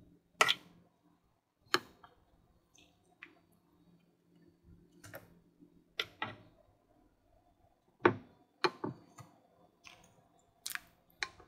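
Kitchen tongs clicking and clacking against a glass bowl and an air fryer basket as parboiled sweet potato fries are lifted out of water and dropped into the basket: about ten sharp, irregular clicks.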